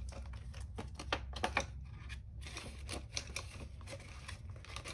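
Paper dollar bills and a clear plastic binder pocket being handled: irregular rustling and crinkling with many light clicks.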